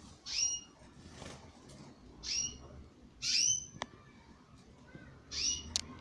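Canaries giving short call notes, four in all, each a quick chirp falling in pitch and spaced a second or two apart. Two sharp clicks come near the middle and just before the end.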